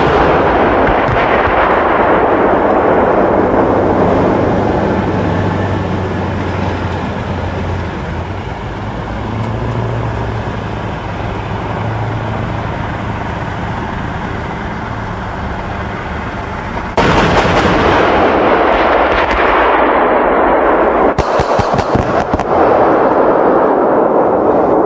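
CV9040 combat vehicle on the move, its engine and tracks running, with salvos of fire from its Bofors 40mm L70 cannon firing high-explosive tracer rounds. The sound turns suddenly louder about two-thirds of the way through.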